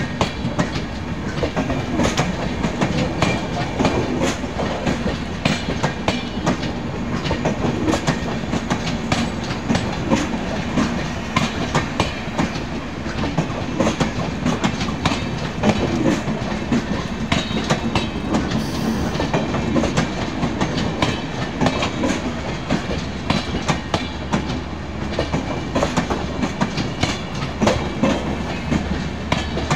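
Humsafar Express passenger coaches rolling past at close range, their wheels clattering over the rail joints in a steady run of sharp, uneven clicks over a continuous rumble.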